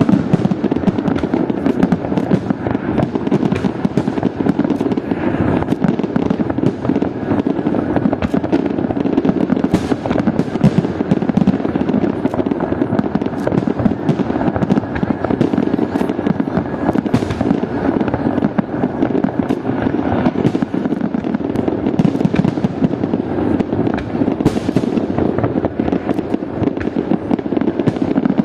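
Fireworks display: a dense, continuous barrage of bangs and crackling, with many sharp reports overlapping one another.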